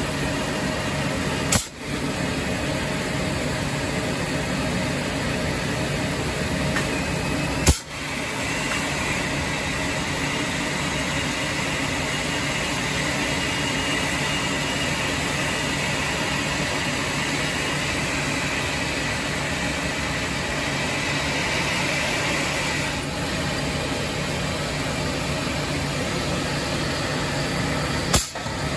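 Steady industrial machinery noise with a faint high whine through the middle stretch, broken by three sharp clicks.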